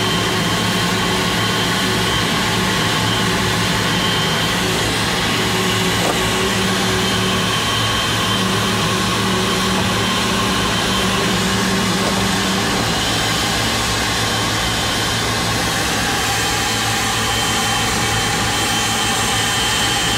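Boeing 777-300ER's GE90-115B turbofan running steadily: an even jet whine with a high steady tone over a low hum.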